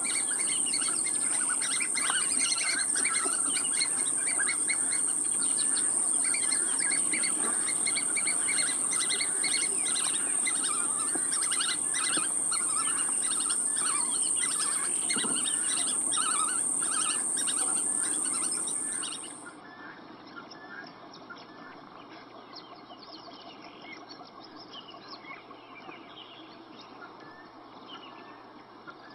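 Birds chirping and calling in an outdoor rural soundscape, over a steady high-pitched whine. About two-thirds of the way through, the whine cuts off suddenly and everything becomes much quieter, with the bird chirps continuing faintly.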